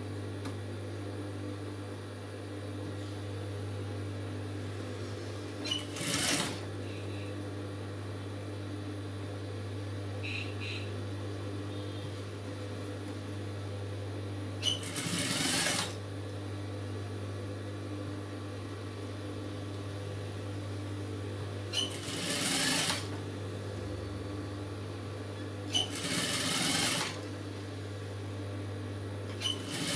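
Industrial lockstitch sewing machine stitching a blouse lining in four short runs, each starting with a click. A steady low hum continues underneath between the runs.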